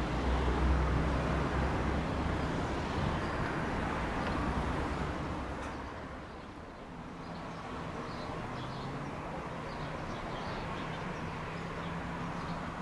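Low engine hum from a vehicle, strong for the first few seconds and dying away about halfway through, over a steady outdoor rumble.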